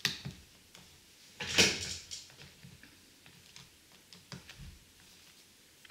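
Small plastic clicks and taps of LEGO pieces being handled and pressed together, with one short, louder rustle about a second and a half in.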